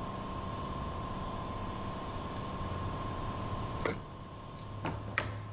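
Steady hum of a workshop's background noise, holding one faint constant tone. About four seconds in, a sharp click, then two lighter ones near the end, as a metal combination square is lifted off the plywood and handled.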